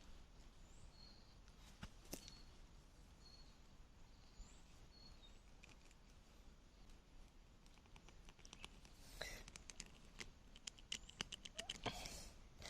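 Quiet outdoor ambience with a few faint, short high bird chirps. From about nine seconds in come a run of light clicks and scrapes, growing busier near the end.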